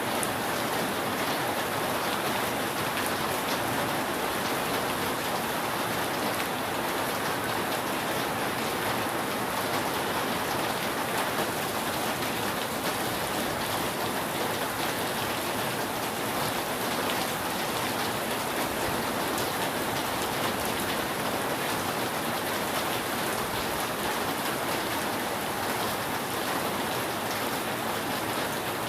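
Steady rain falling on a roof, an even patter of many drops with no change in strength and no thunder.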